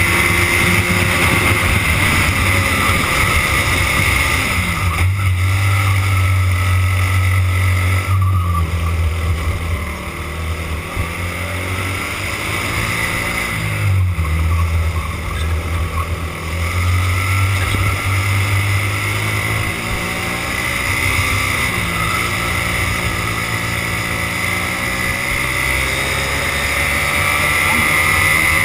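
Racing kart's engine heard from on board the kart at racing speed, its revs dropping and climbing again several times through the corners, with a steady high whine and rushing air noise over it.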